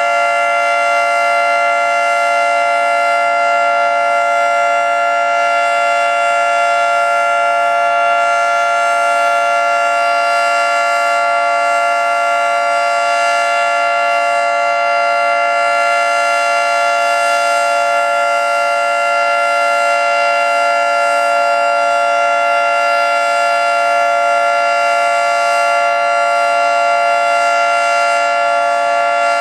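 Federal Signal 2T22 dual-tone outdoor warning siren sounding its steady Alert signal: a loud held two-tone chord that neither rises nor falls.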